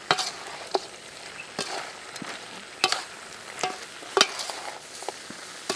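Pork curry frying in a large metal pan in the fat rendered from the meat, sizzling steadily, while a perforated metal ladle stirs it and scrapes and clinks against the pan repeatedly.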